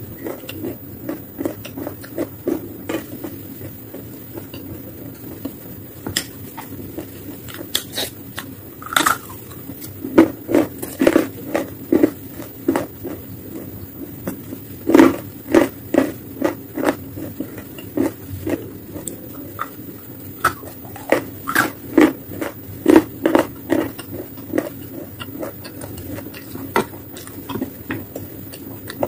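Close-up crunching and chewing of chalk coated in a wet paste: crisp, irregular crunches that come in quick runs of bites.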